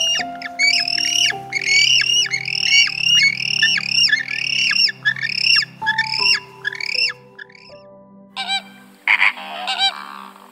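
A bird squawking over and over in short, arched calls in quick succession, over soft background music. The squawks stop about seven seconds in, and a different, shorter call follows.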